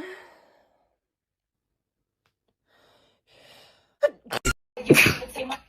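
A woman's sneeze trails off, then silence for about three seconds. A faint breath in follows, and about four seconds in comes a quick run of abrupt sneezes with breathy exhalations.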